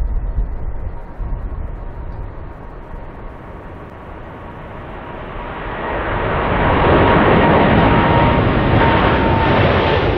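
Boeing 787-9 jet engines at takeoff power as the airliner lifts off and climbs overhead. A low rumble eases off about four seconds in, then builds from about six seconds into a loud roar with a thin whine that slowly falls in pitch.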